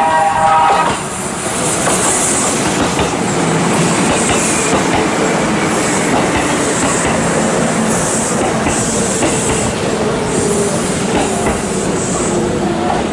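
Kintetsu electric train running on the rails with a steady, loud rumble and wheel noise. A brief pitched tone of several notes stops about a second in.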